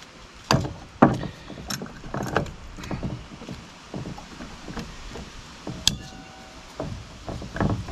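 Metal clinks, knocks and scrapes of a rusted engine water pump and its impeller being gripped and worked by hand, with one sharp ringing metallic clink about six seconds in. The impeller is being forced against its seized threads and won't turn.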